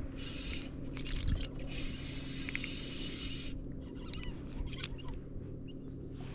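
Small motor running steadily, a low even hum, with water rushing past in stretches and a few light clicks and knocks.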